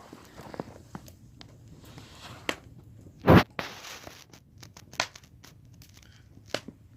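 Wood fire crackling: scattered sharp pops and snaps over a faint hiss, the loudest a little past three seconds in.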